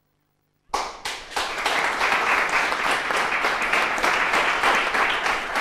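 Small seated audience applauding, starting abruptly just under a second in after near silence and continuing as steady clapping.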